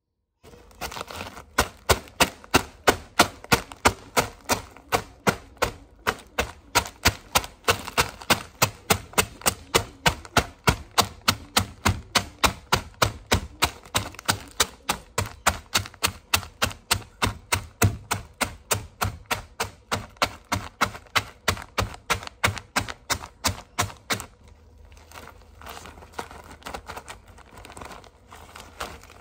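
Cheetos Puffs in a plastic zip-lock bag being pounded on a kitchen benchtop to crush them into crumbs, with sharp, even strikes about three a second. Near the end the pounding stops, and the bag of crushed crumbs is rustled and pressed by hand.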